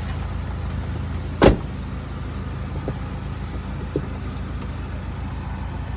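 Car engine idling with a steady low drone, and a car door shut once with a loud thump about a second and a half in, with a couple of small clicks later.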